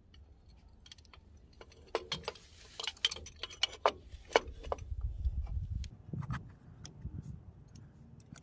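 Metal clicks and clinks of a new brake shoe being fitted onto the rear drum-brake backing plate of a 1994 Nissan D21 truck: a cluster of sharp taps between about two and five seconds in, some with a short metallic ring, then a low rumble.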